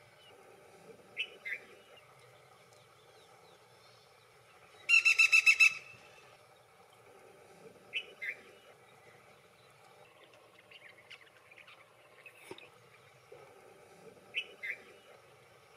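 Black-rumped flameback calling: a loud rapid rattle of about eight notes in under a second, about five seconds in. Softer two-note calls come three times, roughly six seconds apart.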